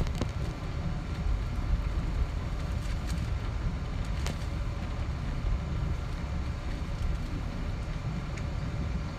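Cabin noise inside a Boeing 777-200ER airliner taxiing: a steady low rumble from the engines and rolling gear, with a few light clicks.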